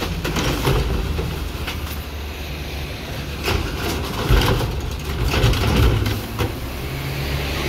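Rear-loader garbage truck's diesel engine running steadily, growing louder for a few seconds in the middle, with several metallic clanks and knocks from the rear hopper and packer.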